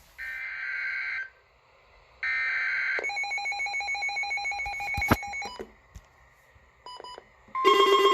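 Weather radio emergency alert signalling: two data-tone bursts about a second each, the SAME alert header, then a pulsing electronic alert tone for a couple of seconds. Near the end a loud steady alert tone starts.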